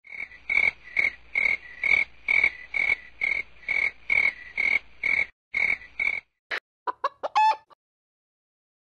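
A frog-like croak sound effect repeating about twice a second for about six seconds, followed by a few short rising chirps.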